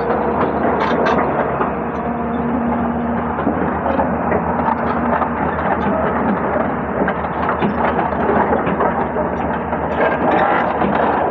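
Excavator diesel engine and hydraulics running under load, with scattered knocks and clatter as rock and sand are loaded.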